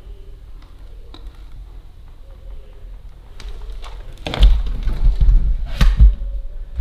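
A run of knocks and heavy thumps about four seconds in, lasting around two seconds, after a few faint ticks.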